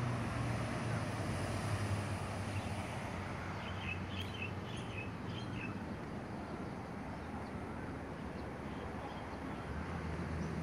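Steady outdoor background hum, with a short run of bird chirps about four to five seconds in.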